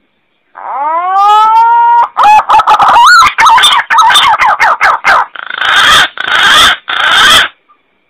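Green pigeon (punai) call: a whistled note that rises and then holds for about a second and a half, then a quick run of wavering, warbling notes, ending in three harsh, rasping calls.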